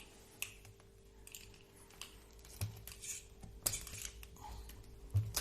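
Scattered small clicks and taps of plastic and metal parts being handled and prised apart while an RC car's front drivetrain is dismantled, the loudest near the end, over a faint steady hum.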